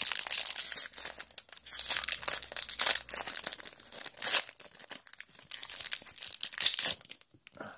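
Foil wrapper of a Magic Origins booster pack crinkling and tearing as it is pulled open by hand, in irregular crackles, with a brief pause near the end.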